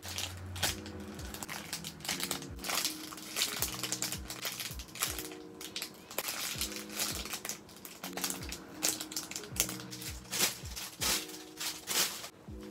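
Thin clear plastic bags crinkling as bagged squishy foam toys are squeezed and handled, over soft background music with a steady beat.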